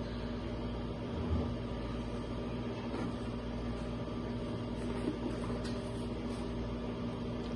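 Steady low mechanical hum with a few faint knocks as hands work inside a cardboard box.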